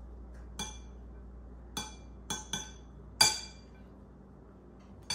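Metal spoon clinking against a ceramic bowl while food is stirred. There are six short ringing clinks at uneven intervals, the loudest just past three seconds in.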